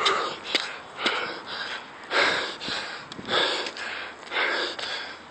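A man panting heavily close to the microphone, about one loud rasping breath a second, out of breath from climbing steep stairs at high altitude.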